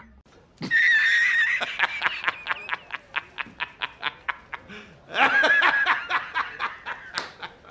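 A child laughing hard: a high-pitched squeal breaking into a long run of quick, even ha-ha pulses, then a second burst of high laughter about five seconds in.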